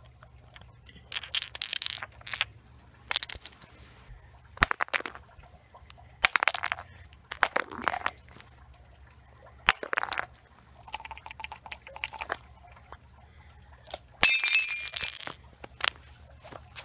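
Chunks of ice breaking and clinking against a concrete sidewalk, in about eight separate bursts of cracking and skittering fragments, the loudest near the end.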